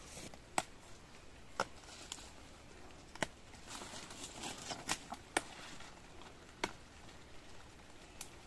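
Gomchwi (Ligularia fischeri) leaves being picked by hand: soft rustling of the large leaves with about seven irregular sharp snaps as the leaf stalks are broken off.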